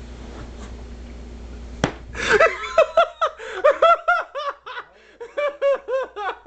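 A single sharp smack about two seconds in, then loud laughing in quick repeated bursts.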